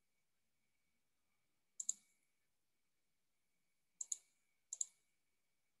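Computer mouse clicks: three quick press-and-release double clicks, about two seconds in, at four seconds and just before five, with near silence between.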